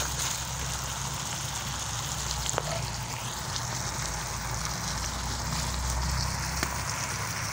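Whole chicken sizzling steadily in a wok, the last of its Sprite sauce cooking down to a glaze. A low steady rumble runs underneath.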